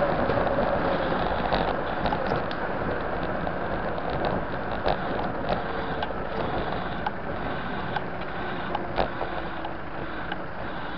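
Bicycle riding through city traffic heard from a bike-mounted camera: a steady rush of wind and road noise, with irregular sharp clicks and rattles from the bike over the road, and passing cars.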